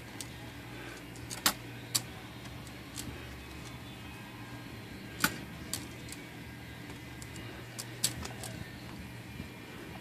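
Five or six sharp, separate metallic clicks as the mechanism of an Underwood Noiseless typewriter is handled at its mainspring and draw-band pulley, over a steady low hum.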